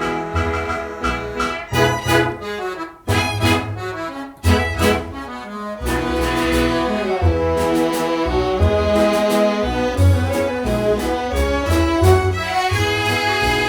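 Karaoke backing music with the lead vocal removed: an old-style band arrangement playing over a steady beat.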